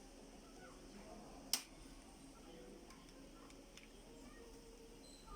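One sharp click about a second and a half in, followed by a few faint ticks, from handling a laptop while its RAM is being upgraded; low room noise between them.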